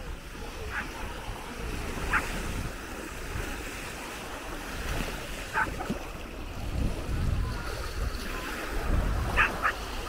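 Small Baltic Sea waves washing onto a sandy shore, with wind buffeting the microphone. A few short, distant high calls stand out, about a second in, near the middle and near the end.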